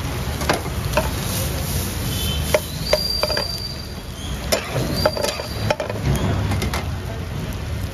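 Kebab pieces frying in a pool of melted butter in a steel pan, sizzling steadily. A metal spatula clinks sharply against the pan several times, and two short high squeaks sound near the middle over a steady low rumble.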